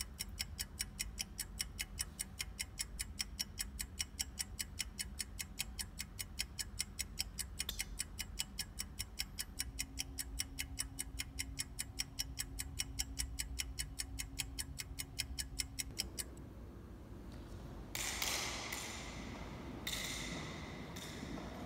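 Fast, even clock-like ticking, about four to five ticks a second, over a low hum. It stops suddenly about three-quarters of the way through, and two echoing bangs follow near the end.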